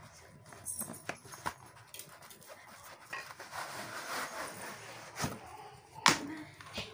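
Cardboard product boxes handled and shifted on a wooden table: scattered light taps and knocks, a stretch of rustling in the middle, and a sharper knock about six seconds in.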